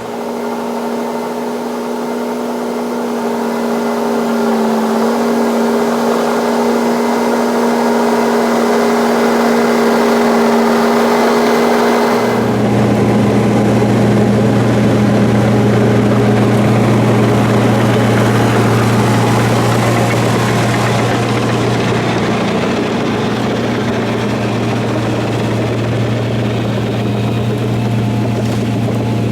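Caterpillar D5 bulldozer's diesel engine running steadily. About twelve seconds in, its note changes suddenly and turns deeper and heavier.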